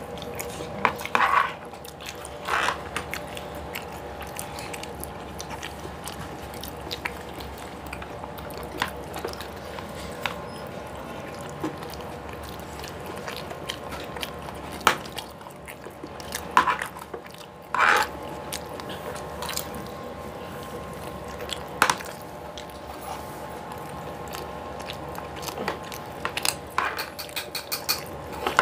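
Two people eating instant Maggi noodles: chewing and a few short slurps, with spoon and fork clicking against the tray now and then, over a faint steady hum.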